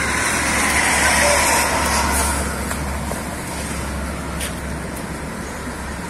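Water sloshing and lapping as several children shift about on a rubber inner tube in a river, over a steady low rumble.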